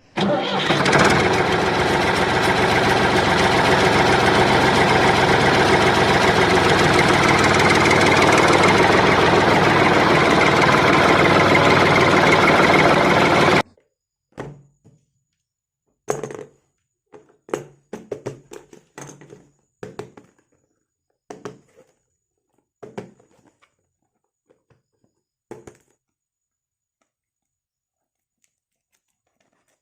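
A loud, steady, dense mechanical noise that cuts off suddenly about 14 seconds in. Then come scattered short rustles, taps and knocks of toy packaging being handled and opened, with quiet gaps between them.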